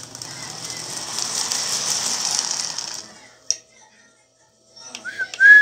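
Lionel 2065 postwar 4-6-4 toy steam locomotive running on three-rail track with a rattling whir of wheels and motor gears. The sound grows louder as the engine approaches, then stops suddenly about three seconds in. A single click follows, and near the end comes a short, loud, high whistle.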